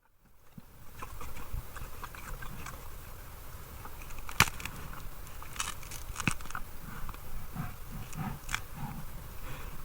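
Brown bear sound effect fading in: irregular crunching and sharp clicks, with a few low rumbling sounds near the end.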